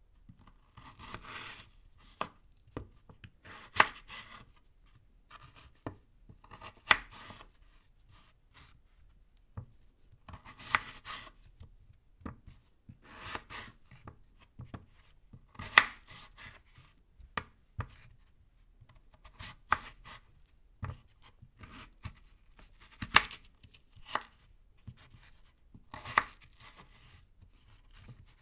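Knife cutting through a raw potato, one slow cut at a time: each stroke is a short crisp slice ending in a sharp knock, roughly one every two to three seconds.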